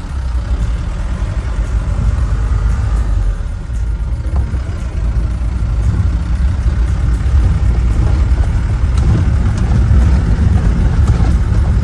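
Motor vehicle running: a steady low engine and road rumble, with a brief dip in loudness early on and a gradual rise over the rest.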